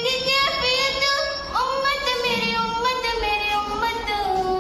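A young female voice singing a naat unaccompanied, drawing out long, wavering notes.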